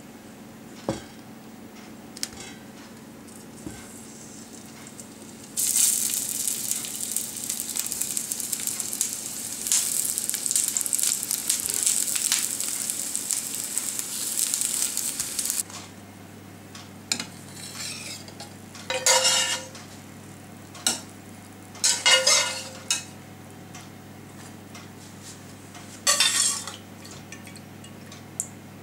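Sausages sizzling in hot oil in a cast-iron frying pan for about ten seconds as they are laid in. Later come three short clinks and scrapes of crockery and cutlery.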